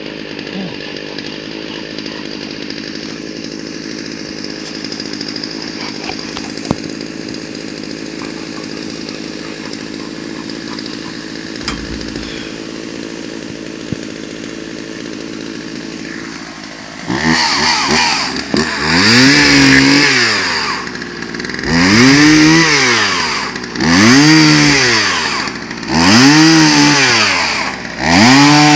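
Gas chainsaw cutting a log lying across a sawbuck, about halfway in. It revs up and sags back again and again, one cut about every two seconds. Before that there is a steady lower running hum.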